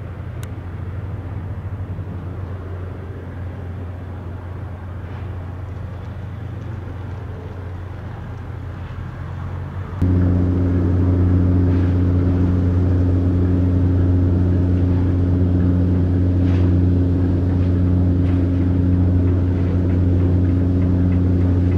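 A steady low engine hum, as of an engine idling, with no revving. About ten seconds in it jumps abruptly louder and stays steady.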